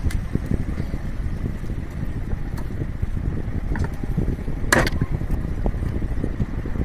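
Light metallic clicks and one sharper clink, about four and a half seconds in, as tools and metal parts are handled during scooter engine assembly, over a steady low rumble like wind on the microphone.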